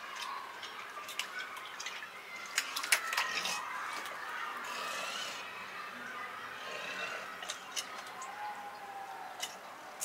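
A cormorant working a large fish in its bill in a plastic bucket of water: sharp clicks and taps with light splashing. The clicks cluster loudest about three seconds in, with a few more near the end.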